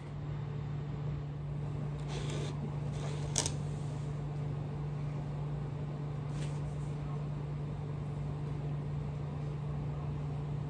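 A steady low electrical hum in a small room, with a few faint rustles and one sharp click about three and a half seconds in.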